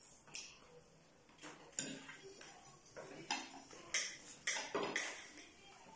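Forks and knives clinking and scraping against plates, an irregular scatter of short sharp clicks.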